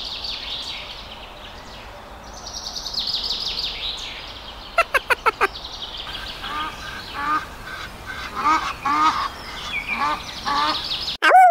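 Domestic ducks calling while they forage: frequent high, rapid peeps, a quick run of about five loud quacks about five seconds in, and a loud falling call near the end that cuts off suddenly.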